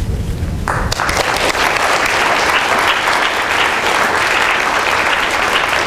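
Audience applauding, starting about a second in and going on steadily.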